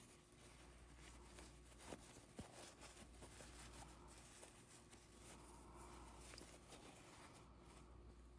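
Near silence: room tone, with two faint ticks about two seconds in.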